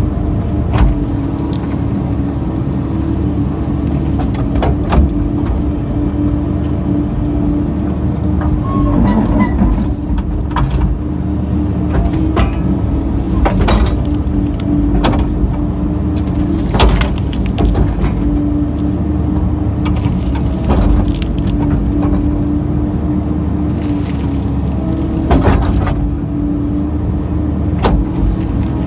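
Kobelco excavator's engine running steadily under digging load, heard from inside the cab, with a dozen or so sharp knocks and clunks scattered through as the bucket tears into the stump roots and soil.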